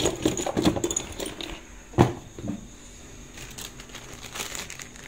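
Crinkling rustle and small clicks of a plastic sheet being handled, with one sharp click about two seconds in.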